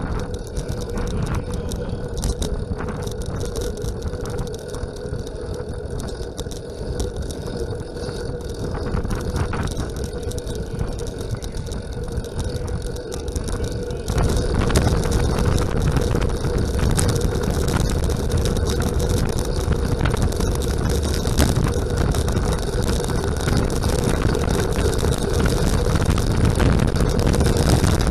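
Wind rushing over a bike-mounted camera's microphone and the rolling noise of track bicycles at racing speed on a velodrome, with a steady hum underneath; it gets louder about halfway through.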